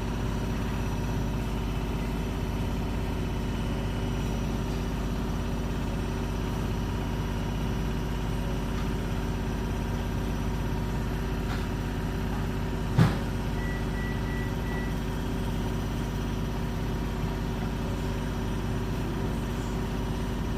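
Beko WS832425s washing machine spinning at a steady speed with a bulky, unevenly spread load, a constant low motor-and-drum hum. One sharp knock about halfway through.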